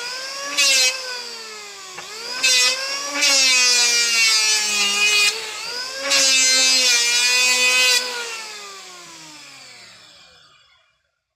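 Electric hand planer running, its motor whine wavering as the blades bite into a wooden board in four loud cutting passes, the longest about two seconds. The cutting then stops and the motor winds down, its pitch falling until it dies away near the end.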